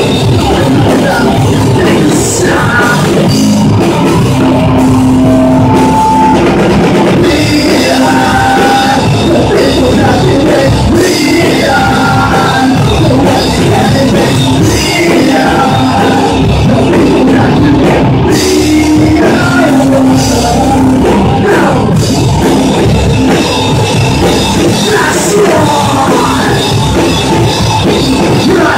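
Live rock band playing loud, with distorted electric guitars over a drum kit, held notes and bent guitar lines cutting through a dense, steady wall of sound.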